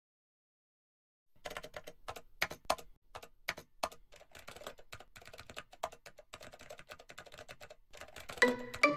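Typing on a computer keyboard: a quick, uneven run of key clicks that starts about a second in. Music with pitched notes comes in just before the end.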